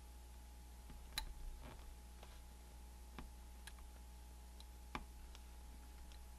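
Faint scattered clicks and taps of fingers handling tiny black plastic tube pieces on a cutting mat, about six in all, the loudest just over a second in, over a low steady hum.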